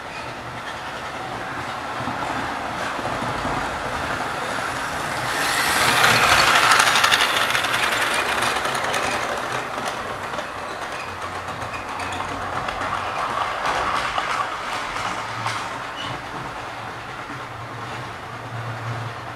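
Model railway train running along the layout track, its wheels clicking over the rail joints. The running noise grows to its loudest about six to seven seconds in as the train passes close, fades, and swells again more softly around thirteen to fourteen seconds.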